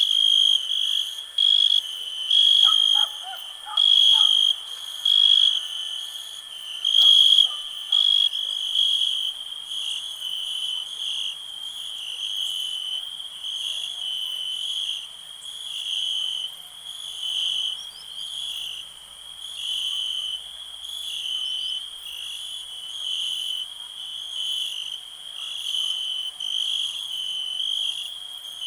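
Crickets chirping, a high trilling tone repeating in regular pulses about once a second. A few faint lower calls sound in the first several seconds.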